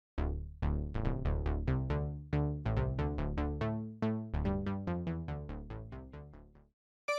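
1980s-style software synthesizer playing a plucky preset: a quick run of short notes, each with a sharp attack that dies away, stopping shortly before the end.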